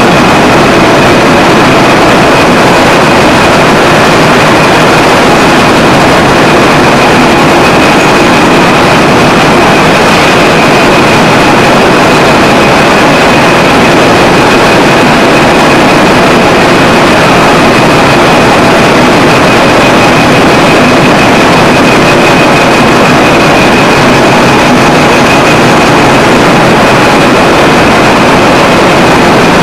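Textile spinning-mill machinery running: a loud, steady mechanical noise with a constant high whine over it.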